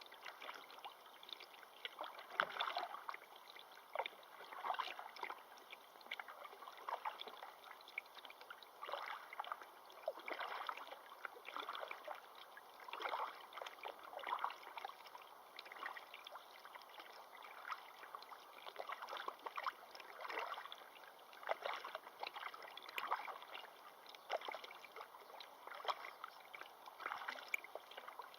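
Water splashing and lapping in irregular bursts every second or two over a faint steady rush.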